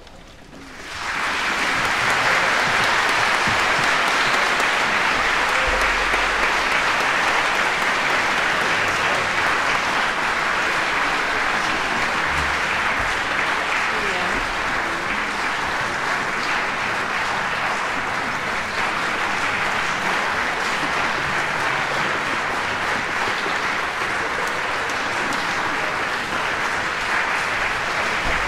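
Audience applauding. It swells up about a second in and then holds steady as a dense clapping.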